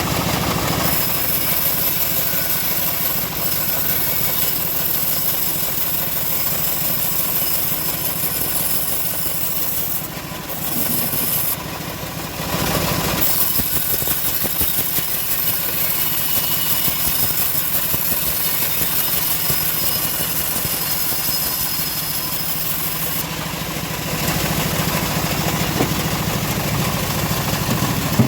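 Homemade engine-driven bandsaw mill running steadily while sawing teak logs. The sound dips briefly about ten seconds in, then picks up again.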